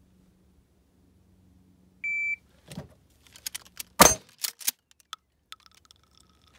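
Electronic shot-timer beep, then about two seconds later a single blast from a Mossberg Shockwave 12-gauge pump shotgun firing 00 buckshot. A quick series of sharp metallic clacks follows as the gun is handled.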